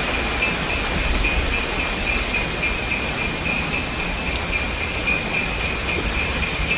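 Sleigh bells jingling in a steady quick rhythm over a low rumble.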